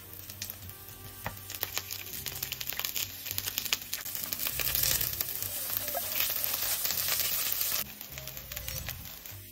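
Food sizzling and crackling in a hot frying pan over soft background music; the sizzle grows louder and then cuts off abruptly near the end.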